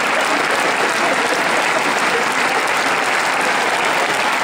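Huge concert crowd applauding in a long ovation: dense, steady clapping from thousands of hands, unbroken and even in level.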